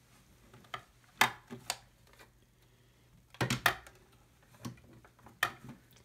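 Plastic hand-cranked paper crimper being handled while a silicone wristband is fed into it: irregular sharp clicks and knocks, the loudest about a second in.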